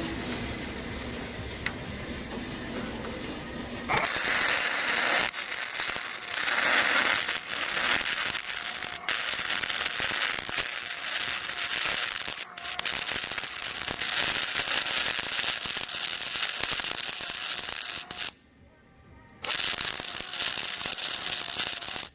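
Aluminium welding: the arc hissing and crackling steadily, starting about four seconds in, with a short break about eighteen seconds in.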